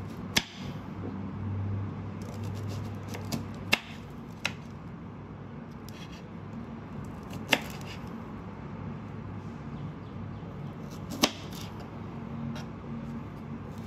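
Knife halving Brussels sprouts on a wooden cutting board: five sharp knocks of the blade hitting the board, a few seconds apart, over a low steady hum.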